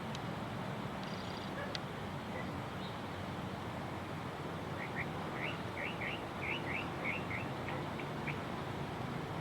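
Birds calling over a steady hiss of outdoor noise: one thin, high note about a second in, then a quick series of about ten short rising chirps from about halfway through.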